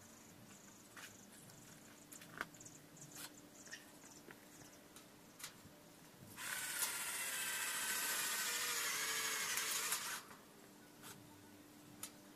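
Power drill running for about four seconds at a joint of a steel profile-tube frame, its pitch wavering slightly under load, then stopping abruptly; a few light knocks and clicks of handling the tool and metal come before it.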